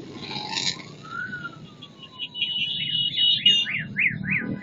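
Motorcycle engines rumbling past while a siren sounds: one slow wail that rises and then falls, then quick rising-and-falling yelps, about three a second, in the second half.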